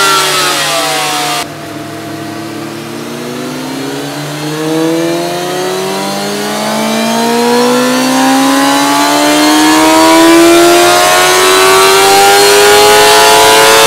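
Honda CBR600 inline-four engine on a dyno, breathing through a Pipe Werx slip-on can with its baffle fitted. The revs fall away at first. After an abrupt drop in level about a second and a half in, the revs climb slowly and steadily for around twelve seconds in a full pull under load, getting louder as they rise.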